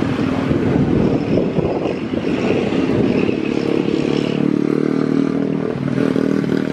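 Motorcycle engines idling at the roadside, a steady low drone.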